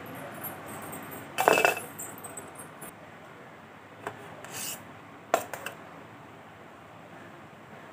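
A metal utensil clatters against a hard surface about a second and a half in and rings briefly. A lighter scrape follows, then two sharp clinks a little after five seconds.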